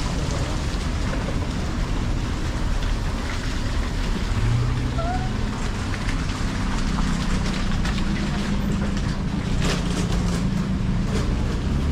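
Steady low rumble of outdoor street ambience with faint distant voices, and a few light clicks about ten seconds in.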